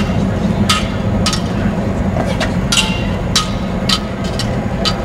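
A series of about seven sharp knocks at uneven spacing, each ringing briefly, over a steady low background rumble.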